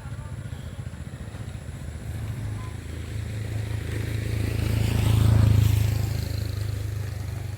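Motor scooter engine running as it approaches and passes by, growing louder to a peak about five seconds in, then fading away.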